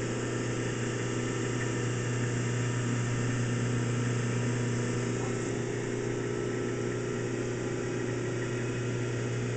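Steady electrical hum of a running argon-ion laser setup: the three-phase rotary phase converter and the laser's power supply, with the hum strongest at a low pitch and a thin hiss above it. The laser tube is running at under half its full current.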